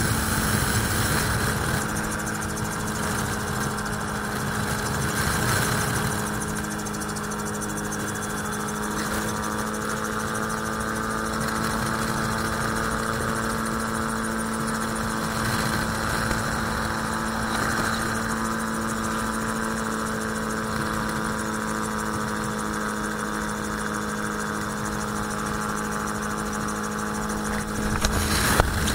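Magni M16 autogyro's engine and pusher propeller running steadily in cruise flight, a constant hum under rushing airflow noise. A brief louder burst of noise near the end.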